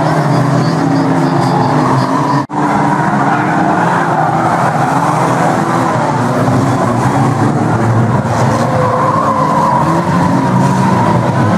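A pack of banger-racing cars running hard around the track, many engines revving together over one another. The sound drops out for an instant about two and a half seconds in.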